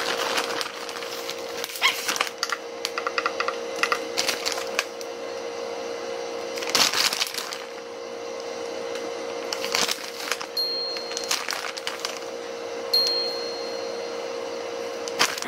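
A plastic bag of shredded mozzarella crinkling and rustling as cheese is pinched out of it and sprinkled, in irregular crackles that come loudest about halfway through and again a few seconds later. A steady hum runs underneath.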